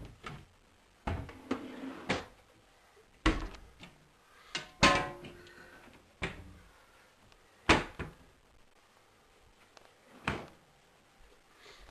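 Kitchen cupboard doors and drawers being shut one after another: a string of sharp knocks and bangs, irregularly spaced a second or two apart, with a short scraping rattle about five seconds in.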